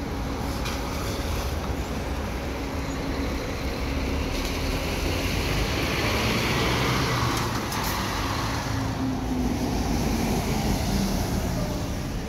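Diesel intercity coach pulling out and driving past close by. Its engine rumble and tyre noise grow louder to a peak about six to seven seconds in, then the engine note drops lower as it moves off.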